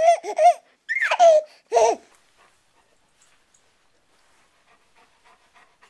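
A baby laughing and squealing in three short, high-pitched bursts over the first two seconds, the middle one sliding down in pitch. After that only faint, scattered soft ticks remain.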